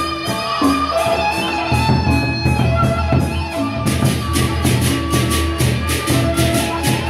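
A Lombok gendang beleq gamelan plays, with large barrel drums, small gongs ringing melodic notes and deep gong tones underneath. About four seconds in, the hand cymbals come in with fast, evenly paced clashing.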